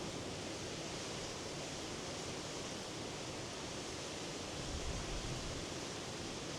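Sea surf washing steadily, an even hiss of breaking waves, with a low rumble swelling briefly about five seconds in.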